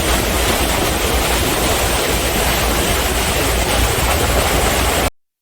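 Steady low rumble with rushing wind and water on board a moving ferry. It cuts off suddenly about five seconds in.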